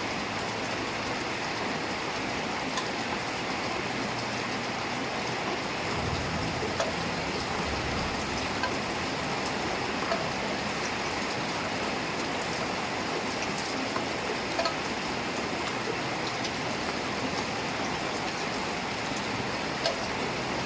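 Heavy rain falling steadily, with scattered sharper drip ticks and a low rumble for a few seconds after about six seconds in.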